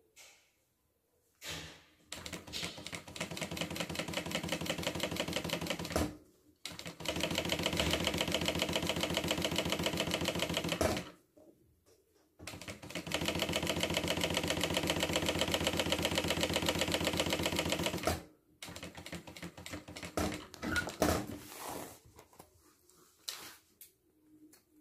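Industrial lockstitch sewing machine stitching a seam: a brief burst to backstitch at the start, then three runs of fast, even stitching separated by short stops, followed by lighter scattered handling sounds.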